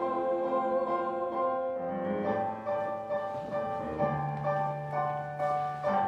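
Mixed-voice show choir singing long held chords without words. The harmony shifts every second or so, and a low bass note comes in about four seconds in and is held to the end.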